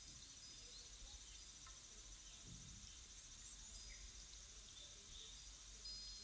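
Faint nature soundscape: crickets trilling steadily, with scattered short bird chirps and a couple of brief whistled bird notes.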